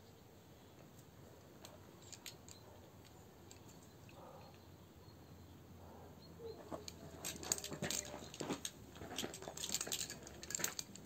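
Faint outdoor background, then from about six seconds in a quick, irregular run of light clicks and rattles close to the microphone, growing louder toward the end.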